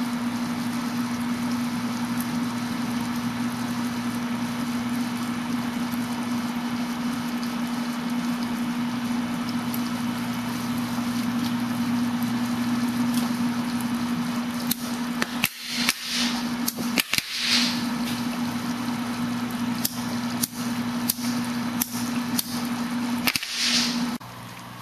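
HHO electrolysis cell fizzing steadily as gas bubbles stream off its plates, drawing about 22 amps under a constant-current PWM controller, over a steady low electrical hum. Several brief dropouts and hissy flares come in the second half, and the sound cuts down just before the end.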